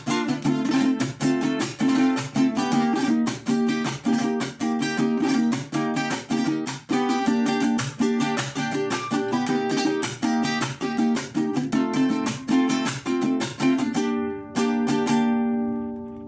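Mexican vihuela strummed fast in a steady rhythm. Near the end a few last strums ring out and fade away.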